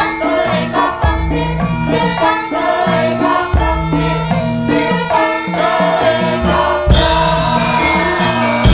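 Female Javanese sinden singing into a microphone over gamelan accompaniment, with steady stepped metallophone notes and low drum strokes every few seconds. About seven seconds in, the music changes abruptly.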